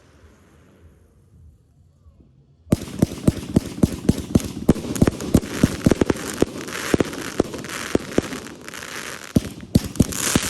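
Fireworks crackling: after the fading tail of an earlier bang, a dense run of rapid sharp pops over a hiss starts suddenly about three seconds in and keeps going.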